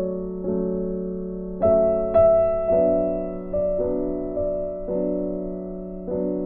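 Slow, gentle background piano music, notes struck roughly once a second and left to fade.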